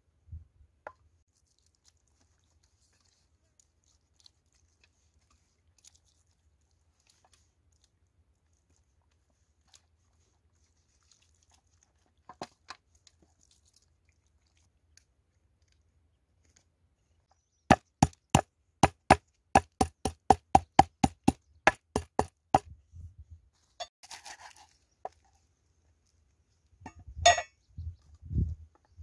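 A cleaver chopping on a thick round wooden chopping board: a quick, even run of about twenty sharp strikes, roughly four or five a second, lasting about five seconds past the middle. A few dull thumps follow near the end.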